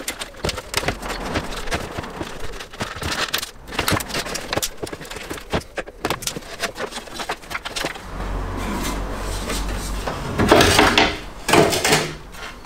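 Hands working loose plastic wiring clips and cable tidies and handling a car's front valance panel: a run of small clicks, knocks and rubbing, with a few louder bursts near the end.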